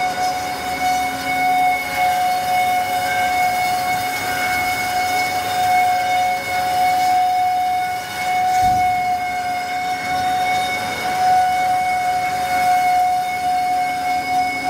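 Amada H-1080 automatic band saw running: a steady high whine with a fainter, higher steady tone above it over a constant machine noise, and a brief low thump about nine seconds in.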